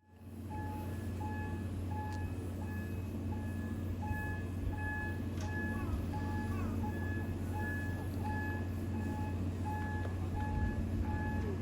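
Railway turntable's warning alarm: short electronic beeps repeating about every 0.7 s over a steady low mechanical hum.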